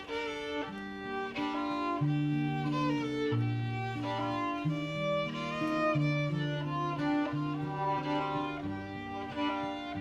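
Instrumental string music: a fiddle playing a tune over long held low bowed notes.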